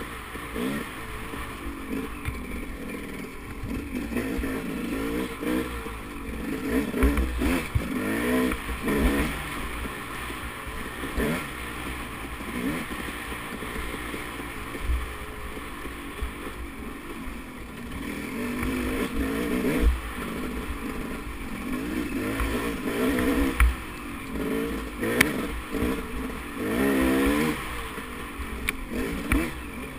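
KTM dirt bike engine running hard on a trail ride, its pitch rising and falling over and over as the throttle is rolled on and off, with frequent low thumps.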